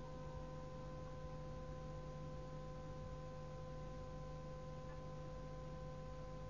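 Faint steady hum made of several held tones over hiss: the background noise of a recitation tape in a pause between verses of Quran recitation.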